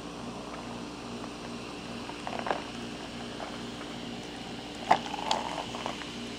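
Soda fizzing over ice in glasses of Shirley Temple, with the ice clicking and crackling in two short clusters, about two and a half and five seconds in; the sharpest click comes near five seconds. A steady low hum runs underneath.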